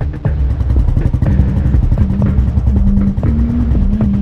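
Motorcycle engine running with a low, rapid chugging as the bike pulls away and rides on.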